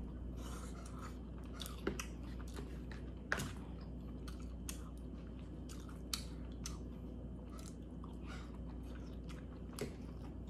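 Close-mic chewing and mouth sounds of a person eating, with scattered short sharp clicks, the loudest about a third of the way in.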